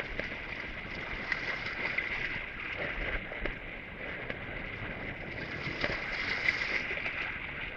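Small sea waves washing over shoreline rocks and shallow water.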